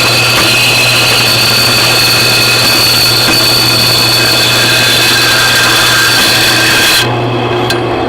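A power tool cutting through a steel railroad spike: a loud, steady whine over harsh metal-cutting noise. The cutting noise stops abruptly about seven seconds in, leaving a low hum.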